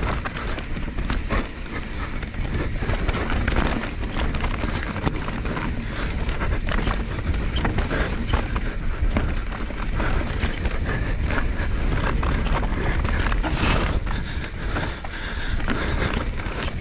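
Wind rushing over the microphone and mountain bike tyres rolling fast over dirt and loose rock on a downhill run, with a constant clatter of knocks and rattles from the bike.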